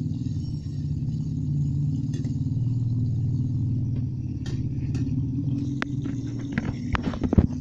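A steady low rumble, with a quick run of clicks and knocks in the last two seconds.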